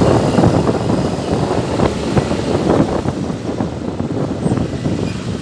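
Riding on a motorcycle: wind buffeting the phone's microphone over engine and road noise, a rough, uneven rumble with no steady tone.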